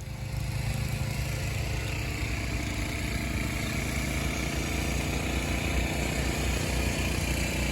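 A snowblower's small engine running steadily.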